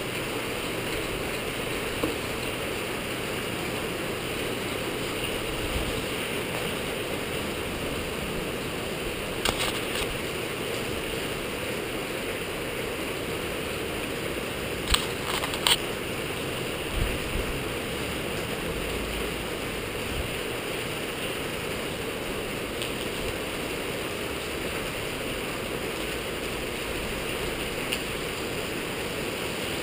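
Skyartec Wasp V3 electric RC helicopter running on the ground: a steady whirr of its motor, gears and rotor, with a few sharp clicks around the middle. Near the end the pitch starts to rise as it spools up.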